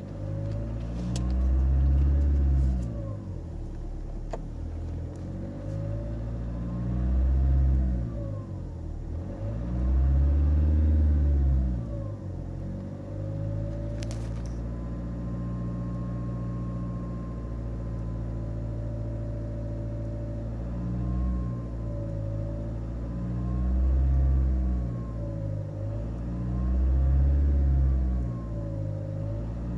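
Nissan X-Trail 2.0 diesel engine revved about five times from idle, with a whistle from the turbocharger rising and falling in pitch with each rev. The owner suspects unbalanced or damaged turbine blades.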